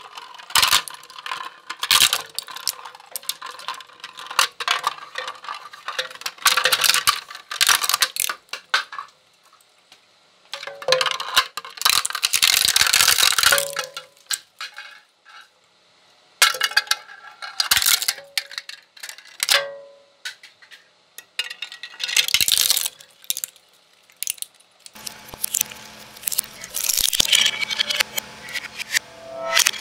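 Twin-shaft shredder's steel cutters crushing hard plastic toy kitchen pieces: bursts of sharp cracking, snapping and crunching, with short lulls between pieces. A steady low hum joins near the end, under the crunching.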